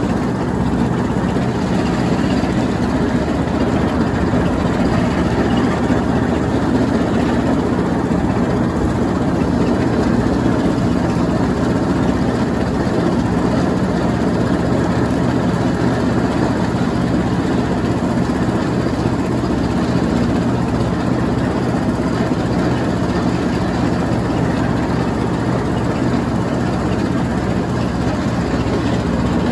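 Troy-Bilt Bronco automatic riding lawnmower running steadily while mowing and shredding light leaves.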